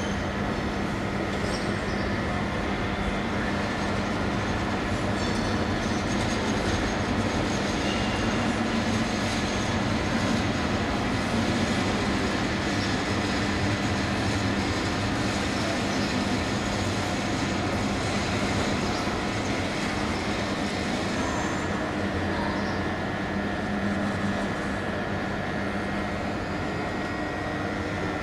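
Train running through a station, heard from on board: a steady rumble of wheels on rail with a constant low hum underneath.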